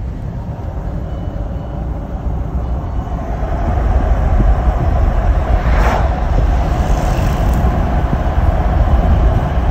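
Road and wind noise of a car driving at speed with a window open: a steady low rushing rumble that grows louder about four seconds in.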